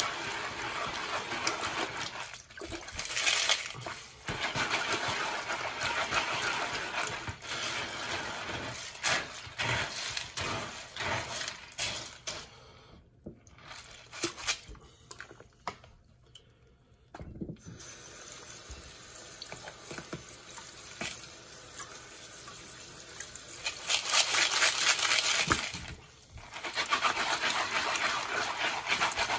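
Tiger nuts being shaken and swished in a plastic colander half-submerged in sink water: splashing and sloshing with many small clicks. It goes quieter for a few seconds midway and is loudest near the end.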